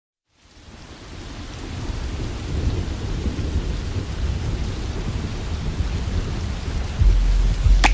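Rain falling with low rolling thunder, fading in over the first two seconds. About seven seconds in a deep steady bass note enters, and a sharp crack cuts across just before the end.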